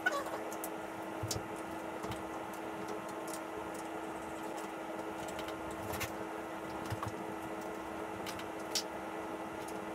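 Scattered light clicks and taps of hand tools and parts being handled on an e-bike during reassembly, over a steady low hum.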